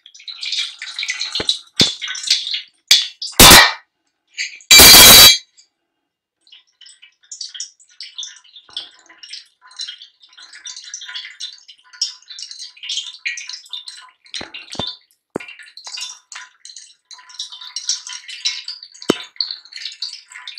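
Tamarind water poured through a plastic tea strainer into a steel bowl, then a steel spoon scraping and pressing the tamarind pulp in the strainer, with small clinks against the bowl. Two loud clatters come about three and a half and five seconds in.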